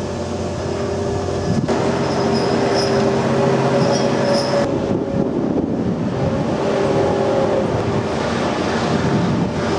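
Steady drone of heavy harbour machinery: a low hum with a few held tones over a rumbling noise.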